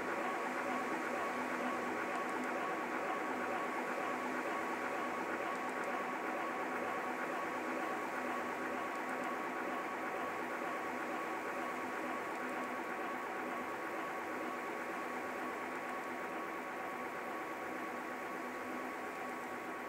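Steady hiss with several steady humming tones running through it, the strongest a mid-pitched hum, easing off slightly toward the end.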